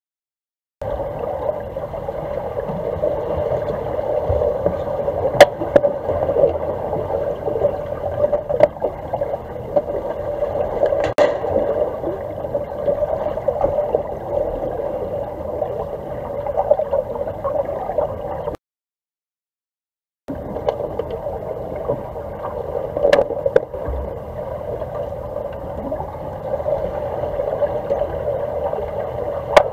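Underwater swimming-pool noise picked up by a submerged camera: a steady muffled churning of water with a few sharp clicks scattered through it. The sound cuts out to dead silence for nearly two seconds a little past the middle, then resumes.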